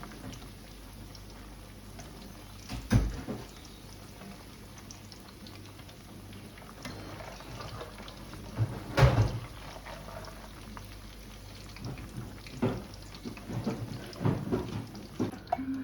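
Kitchen work sounds: a sharp knock about 3 seconds in, a louder knock about 9 seconds in, then a run of smaller knocks and clatter near the end, over a steady low hiss.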